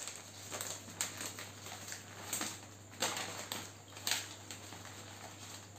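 Sheets of bouquet wrapping paper rustling and crinkling in irregular bursts as they are folded and gathered by hand around the stems.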